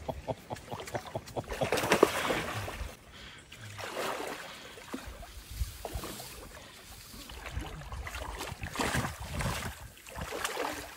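Water sloshing and splashing in a shallow stream as someone wades through it, rising and falling in uneven swells with scattered small knocks.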